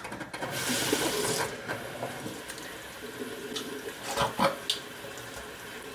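Water running from a tap into a sink, strongest for about a second near the start and then a softer steady flow, with a few short clicks about four seconds in.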